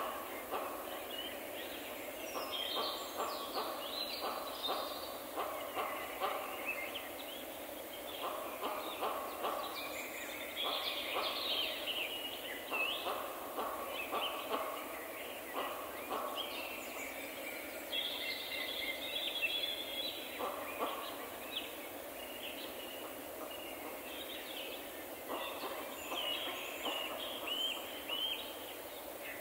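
Forest birds singing and calling: high chirps and trills from several birds, with runs of quick repeated lower notes now and then, over a steady hiss.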